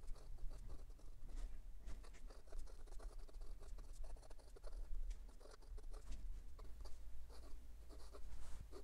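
Extra-fine steel nib of a counterfeit Lamy Dialog 3 fountain pen writing cursive on lined notebook paper: faint, irregular scratching of the pen strokes.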